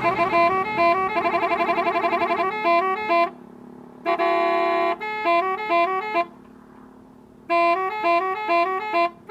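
Minibus telolet horn, an electronic multi-tone horn, playing a fast tune of quick stepped notes. It cuts out twice, and about four seconds in it holds one chord for about a second.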